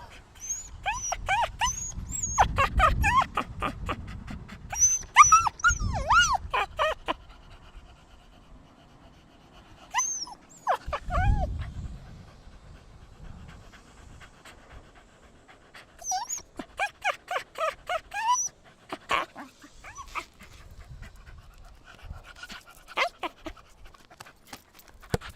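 A fussy dog whining and barking in short, high yips that bend up and down in pitch. The calls come in three bursts of several seconds each, then as scattered single yips near the end.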